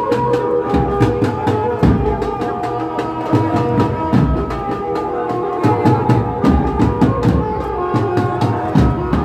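Band of large two-headed drums beating a fast, driving rhythm, with a held melody line sounding over the drumming.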